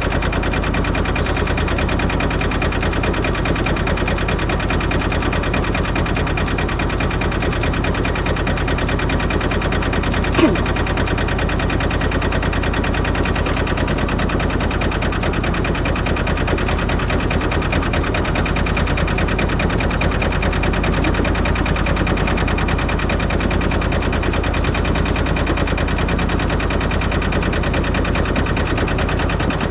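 Albin 2D marine engine running steadily with a fast, even beat. There is a single sharp click about ten seconds in.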